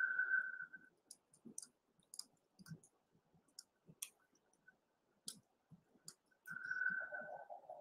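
Faint, scattered clicks from a laptop being operated, a dozen or so irregular taps. A steady high tone sounds briefly at the start and again about six and a half seconds in.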